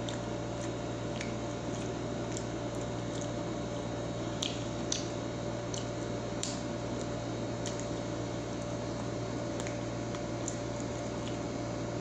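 Small wet clicks and squishes of eating, as French fries are dipped in cheese sauce and chewed, coming every second or so and loudest around four to six seconds in. They sit over the steady hum of a noisy air conditioner.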